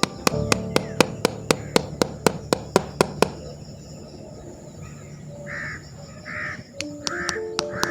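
Background music with a sharp clicking beat about four times a second that drops out after about three seconds. From about five seconds in, a bird calls about six times in short rasping calls over the music.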